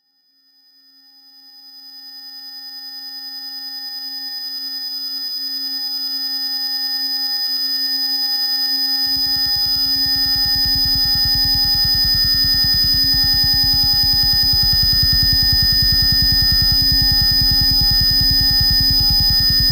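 Analog modular synthesizer drone fading in from silence: steady held tones, the brightest a high whistle-like pitch, joined about nine seconds in by a low, fast-pulsing buzz that sounds engine-like.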